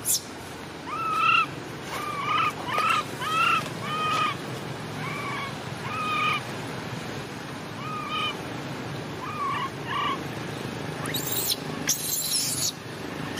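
Infant macaque giving a series of short calls that each rise and fall in pitch, about a dozen spread over nine seconds, then a few brief noisy bursts near the end.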